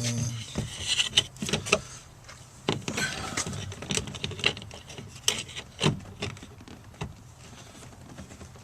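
Irregular clicks, taps and small rattles of hands plugging speaker wiring connectors back in and handling the speaker parts.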